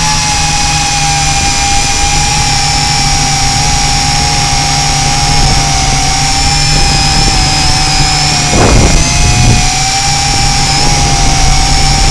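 Tarantula X6 quadcopter's motors and propellers whining steadily in flight, their pitch wavering slightly, heard from the camera mounted on the drone. Heavy wind rumbles on the microphone, with a brief louder rush about eight and a half seconds in.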